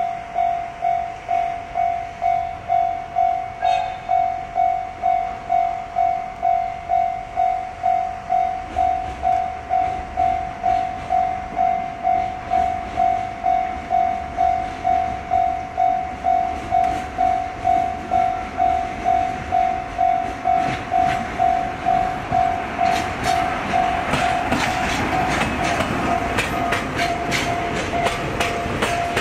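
Level-crossing alarm bell ringing in a steady pulse of about two strokes a second. From about twenty seconds in, a train approaches and passes, with wheel clicks over the rail joints growing loud near the end.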